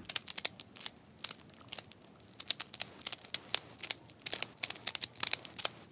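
Plastic Pyraminx puzzle being scrambled by hand: quick, irregular clicks and clacks as its faces and tips are twisted.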